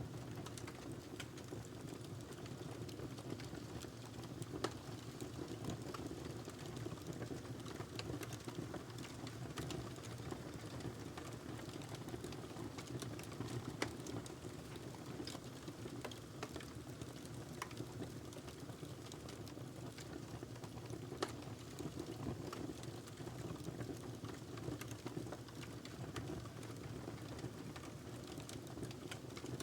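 Wood fire crackling in a fireplace: a steady low noise of burning wood with many small irregular crackles and a few sharper pops.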